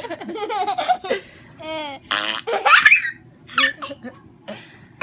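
Baby laughing in repeated short bursts, mixed with silly sound effects played from an iPad.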